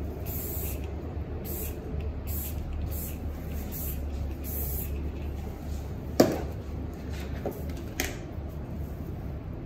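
A spray bottle hissing in six short bursts, then two sharp knocks about two seconds apart, over a steady low hum.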